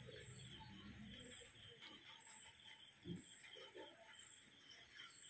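Faint insect chirping, a high trill that pulses about once a second. There is a low rumble in the first two seconds and a short low thump about three seconds in.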